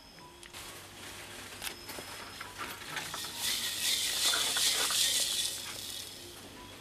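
Pepper and a sprig of curry leaves dropped into a clay cooking pot: a few light ticks, then a rustling hiss that swells in the middle and fades away.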